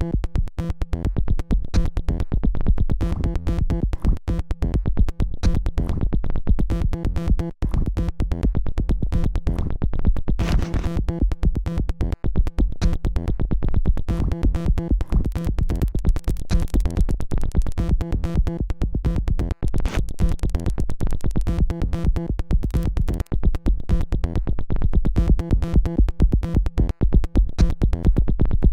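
Electronic music: synthesizer tones over a fast, steady drum-machine beat.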